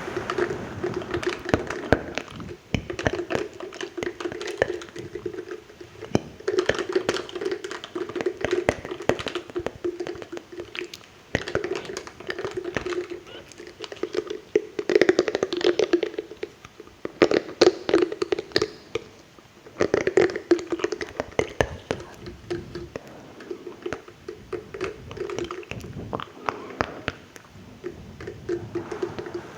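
Close-miked ASMR mouth sounds: rapid wet clicks, pops and smacks coming in clusters a few seconds long.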